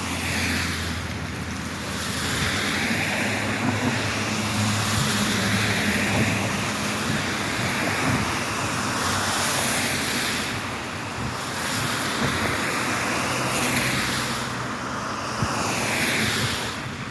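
Vehicle driving on a wet road: a steady low engine and road hum under a hiss of tyres on wet pavement that swells and fades every few seconds.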